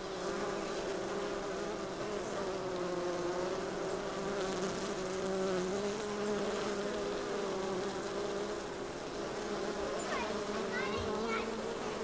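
Honey bees buzzing at the entrance of a busy hive: a steady drone of many wingbeats, wavering a little in pitch. The colony is a strong one, foragers bringing in plenty of pollen.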